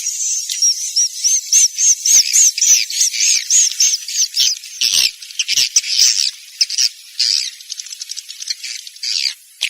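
Swiftlet roosting-call lure recording: a fast stream of short, high chirps and twitters. Early on the chirps come as a regular run of rising-and-falling notes, about three a second, then they crowd into a denser, irregular twitter, with a brief break just before the end.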